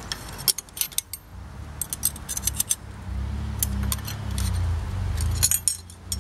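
Flat steel bottom bracket wrenches, a cup wrench and a lock ring spanner, clinking against each other and against the bottom bracket cup and lock ring as they are fitted: a string of sharp metallic clicks. A low rumble runs underneath from about halfway through.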